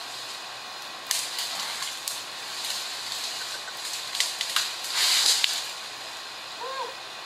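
Dry branches and twigs of a fallen tree rustling and scraping as the trunk is dragged across grass, with a few sharp snapping clicks. The loudest rush of rustling comes about five seconds in, as the branches come down onto the ground.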